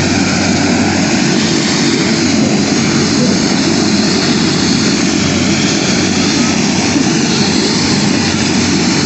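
Light turbine helicopter running on the ground after landing, its engine and rotor giving a loud, steady drone that does not change.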